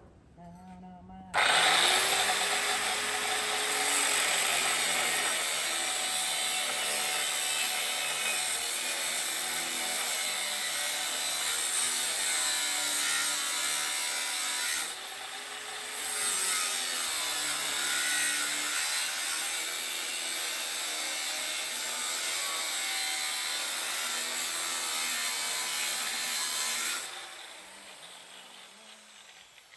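Angle grinder cutting steel: a loud, steady grinding whose motor pitch sags and recovers as it is pressed into the cut. It breaks off briefly about halfway and stops a few seconds before the end.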